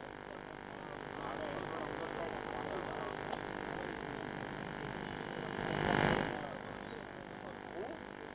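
Low, steady ambient noise of a seated crowd, with faint, indistinct voices in the background and a brief rush of noise about six seconds in.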